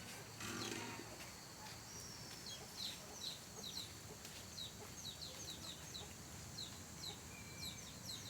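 Faint, repeated short high chirps, each sliding down in pitch, coming a few times a second from birds or young fowl, with a brief lower call about half a second in.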